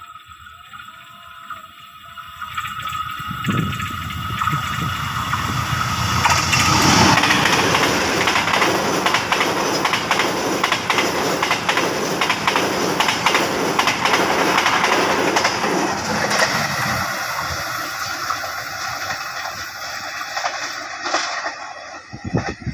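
Passenger train passing close by at speed: the locomotive's engine rises as it comes past, then the coach wheels clatter rhythmically over the rail joints, about two knocks a second over a rushing noise. The sound fades after the last coaches go by.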